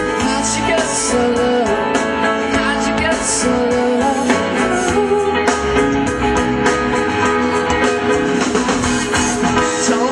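Live rock band playing a song, with guitar, drums and cymbals and a male lead voice singing over them.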